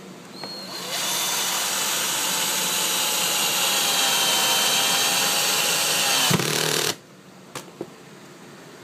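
Electric drill running steadily for about six seconds with a motor whine, then stopping abruptly. Two faint clicks follow.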